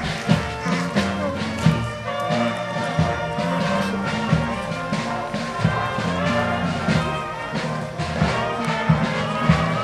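A band playing a traditional march: brass instruments hold notes over a moving bass line, with drum strokes.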